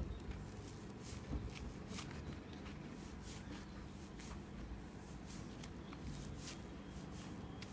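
Hands squeezing and rubbing a homemade dish-sponge squishy: faint, irregular, soft scratchy rustles of fingers on the foam, several in a second at times, over a low room hum.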